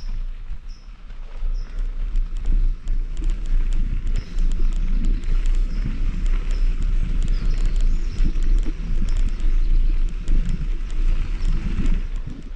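Mountain bike rolling over a dirt trail: wind rumbling on the microphone, with the tyres and bike clattering and rattling over bumps. A faint high chirp repeats about twice a second through the first half.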